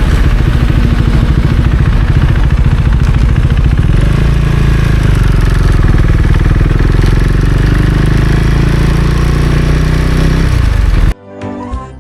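Husqvarna Svartpilen 401's single-cylinder engine running steadily, close up. Near the end the sound cuts off abruptly and a brief snatch of music follows.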